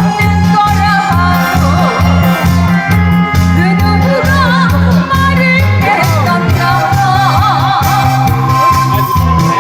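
Korean trot music played loud through a sound system: a steady pulsing bass beat under a wavering sung melody.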